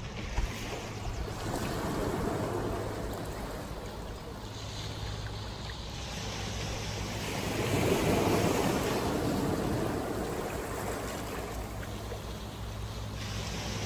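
Ocean surf breaking and washing on the shore, swelling to its loudest about eight seconds in, with wind buffeting the microphone as a low rumble underneath.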